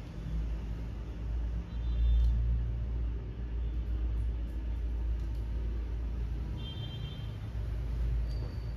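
A low rumble, swelling loudest about two seconds in.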